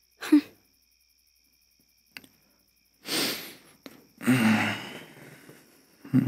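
A man sighing: a breathy exhale, then a longer voiced sigh about a second later, with soft clicks in between.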